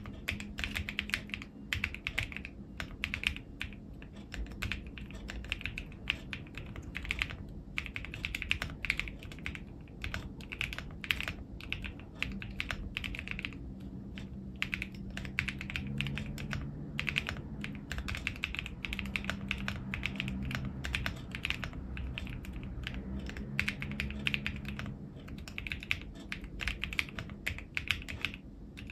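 Typing on an AKKO ACR75v2 mechanical keyboard fitted with KAISYA switches: a fast, continuous run of keystrokes, broken by a few short pauses.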